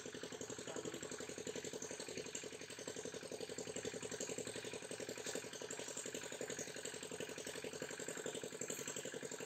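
An engine running steadily, with a fast, even chugging.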